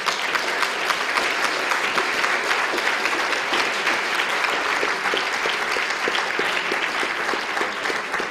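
Audience in a lecture hall applauding steadily, many hands clapping at once.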